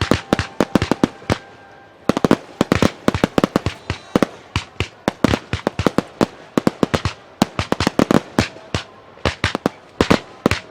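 Aerial fireworks bursting in a rapid barrage, several sharp bangs a second, with a brief lull about a second and a half in before the volley picks up again.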